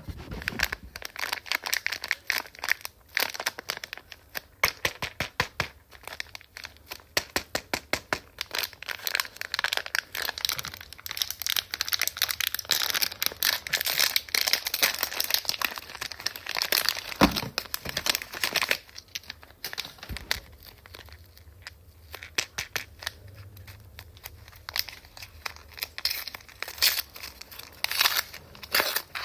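Plastic toy packaging crinkling and tearing as blind-bag packets are handled and opened by hand: a dense run of crackles with one sharp snap about two-thirds of the way in, thinning out after that with a few short bursts near the end.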